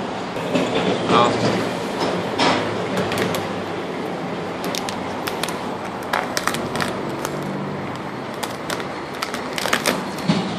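Orange vinyl car-wrap film crinkling and crackling as it is stretched and handled, in short sharp crackles that come mostly in the second half, over a steady background noise.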